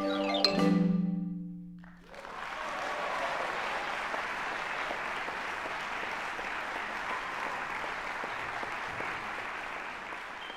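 Xylophone and mallet-percussion ensemble ringing out on the final chord, with a last struck note about half a second in, dying away within about two seconds. Audience applause then starts and goes on steadily.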